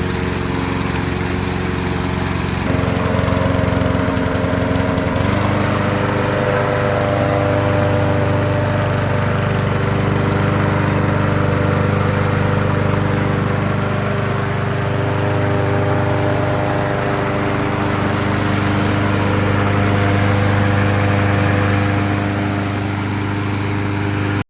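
Honda four-stroke lawn mower engine running steadily just after starting, back in running order on a new spark plug after failing to start. Its note shifts twice in the first few seconds, then holds steady.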